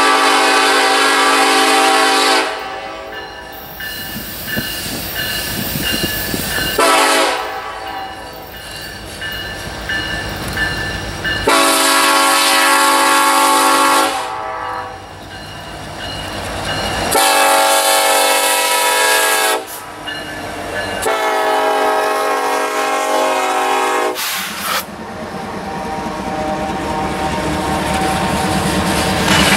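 Norfolk Southern freight locomotive sounding its air horn in a series of long blasts of several steady tones, about five in all, with shorter gaps between them. In the last few seconds the horn stops and the rumble and clickety-clack of the passing loaded hopper cars grow louder.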